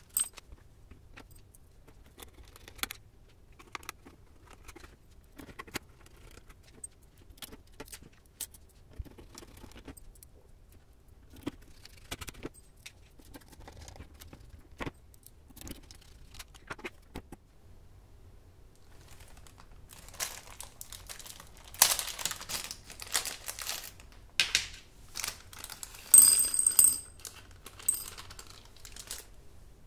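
Light scattered clicks and taps of keyboard stabilisers and a small precision screwdriver being worked on a circuit board. From about twenty seconds in, a small plastic bag crinkles and tiny metal parts jingle and clatter as they are tipped out, loudest near the end.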